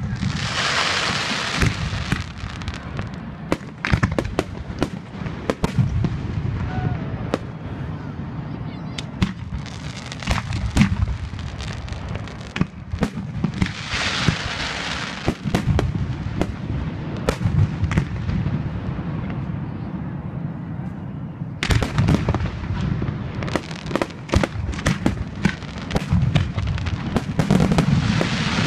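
Aerial firework shells bursting overhead in a long run of sharp bangs. The bangs come thick and fast in the last several seconds.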